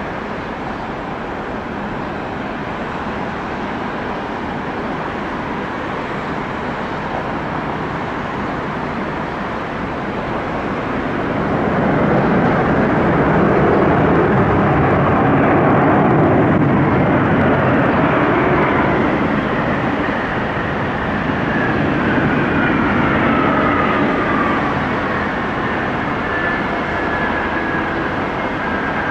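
Airplane engines passing close by: a steady noise swells about eleven seconds in, peaks, then eases off, while a high whine falls in pitch as the aircraft moves away.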